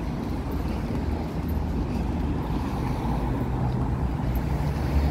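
Steady low rumble of city street noise from traffic, with no distinct events.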